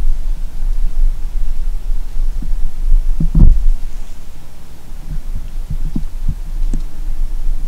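Low rumbling on the camera microphone with soft, irregular thumps, the strongest about three and a half seconds in.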